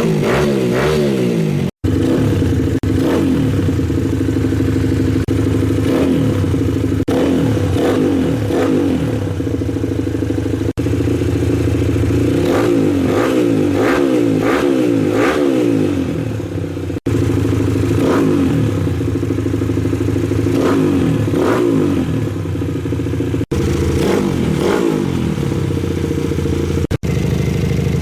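Motorcycle engine running through a Scorpion Serket taper titanium racing exhaust can, idling and revved in short blips several times, each rev rising and falling in pitch. The sound cuts out for an instant a few times.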